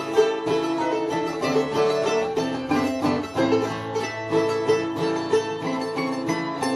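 Instrumental music of plucked strings in quick, continuous picked notes over a lower bass line.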